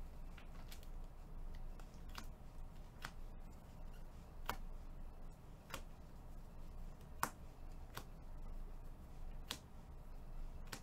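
A stack of baseball trading cards being flipped through one card at a time by a gloved hand, each card giving a sharp snap as it comes off the stack, about eight times at uneven intervals of a second or so, over a faint low hum.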